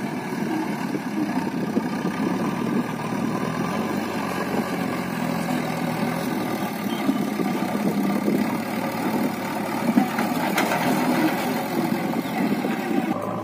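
Diesel engines of a JCB 3DX backhoe loader and a Mahindra 575 DI tractor running together, the loader working as it lifts a bucket of soil while the tractor idles. A single sharp knock about ten seconds in.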